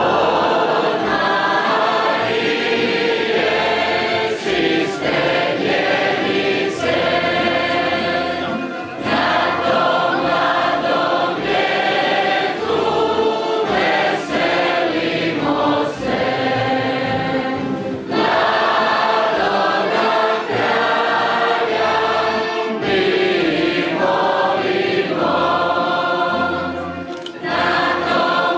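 A mixed choir of men's and women's voices singing a Christmas song in long held phrases, with brief breaks between lines.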